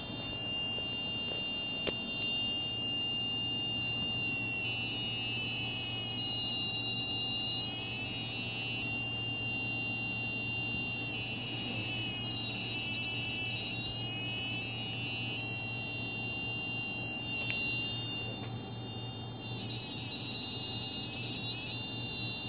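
Satellite dish aligner's electronic buzzer tone: a high, steady whine with several overtones. Its pitch dips and warbles in three stretches as the dish is turned, following the received signal strength.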